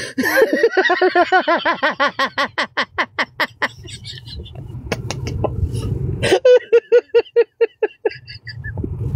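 A person laughing hard in a long run of rapid 'ha' bursts, about five a second, that trails off after a few seconds; after a low rumbling pause, a second, shorter run of laughter follows.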